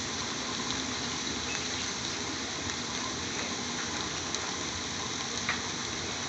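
Pot of spinach and chopped onions cooking over a low gas flame, giving a steady hiss.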